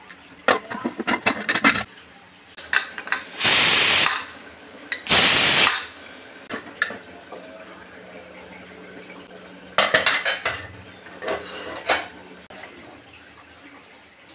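Aluminium pressure cooker: metal clattering, then two loud hissing bursts of steam from its whistle, each under a second. More metal clinks follow near the end.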